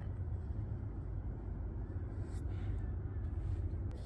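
A steady low outdoor rumble. Twice, a faint soft scrape of a paintbrush laying oil paint onto the painting panel can be heard: about two seconds in and again near the end.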